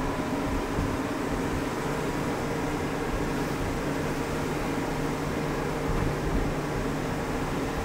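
Truck engine running steadily under way with road and wind noise, heard from on board the moving truck climbing a mountain road.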